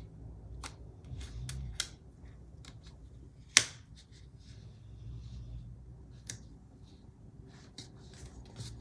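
Scattered light clicks, taps and rustles of paper and sticker sheets being handled on a desk, with one sharp tap about three and a half seconds in.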